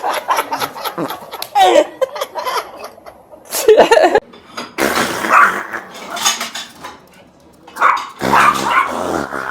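A dog barking in several separate bursts.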